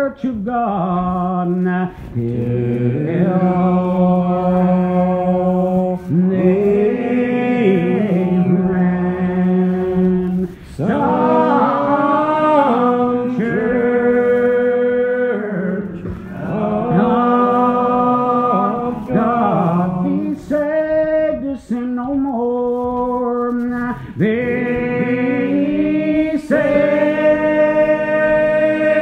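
Unaccompanied hymn singing, slow and drawn out, each syllable stretched over long held notes with short breaks between phrases.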